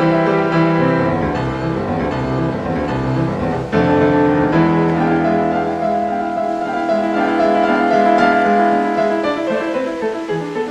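Background music: piano playing a classical or film-style piece, with sustained notes and a chord change just before the middle.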